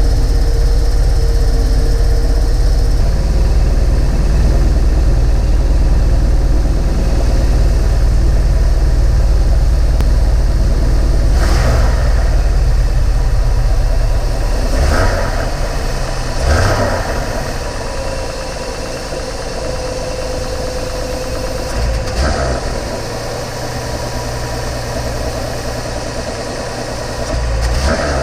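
Ford 300 inline-six engine of a 1984 F-150 running at idle on its newly replaced fuel pump. It is loud and steady for the first half, then quieter, with a few brief sharp sounds scattered through.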